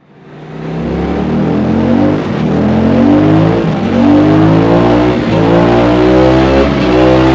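Suzuki DL 1050 V-Strom's V-twin engine through an aftermarket Dominator exhaust silencer. It fades in about a second in, then pulls steadily under load, its pitch climbing slowly as the revs rise.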